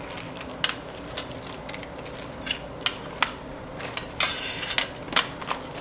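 Small gift items being handled and set down, making scattered light clicks and taps, with a brief scrape or rustle a little after four seconds in.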